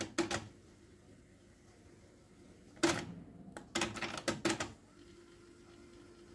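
Denon DRW-585 cassette deck's transport buttons and tape mechanism clicking and clunking as play, stop and wind are switched: one click at the start, another a little under 3 s in, then a run of clicks around 4 s in, with only a faint sound of the tape winding between them.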